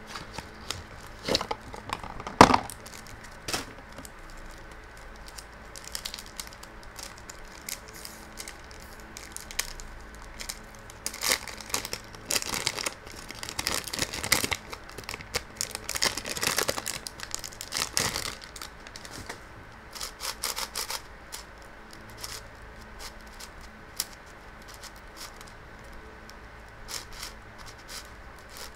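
Unboxing a MoFangGe Wuji 7x7 puzzle cube: the cardboard box is handled and opened, with a sharp knock early on, then the cube's plastic wrap is crinkled and torn off for several seconds. Near the end, light clicks as the cube's layers are first turned.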